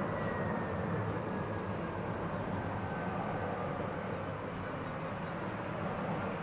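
Jet airliner on final approach: steady engine noise with a faint high whine that slowly drops in pitch.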